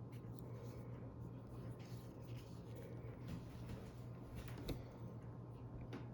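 Faint handling noises from a knife being held and turned in the hand: light scrapes and ticks, with one sharper click about four and a half seconds in, over a steady low hum.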